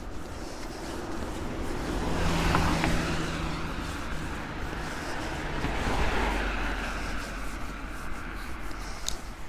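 Road traffic passing close by: a vehicle's engine and tyre noise swells to a peak about two and a half seconds in and fades, then a second vehicle rumbles past around six seconds in.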